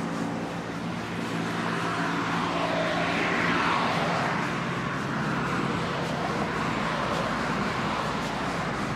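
Road traffic on a multi-lane road: a steady hum of tyres and engines, swelling to a louder peak about three and a half seconds in as a vehicle passes, then easing.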